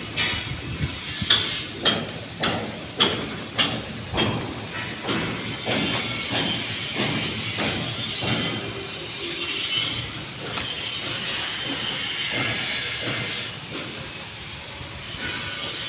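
A series of sharp knocks, between one and two a second, for about the first half, then a steadier rattling clatter without distinct strikes.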